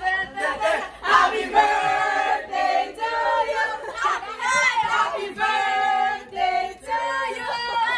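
Voices singing in long held notes.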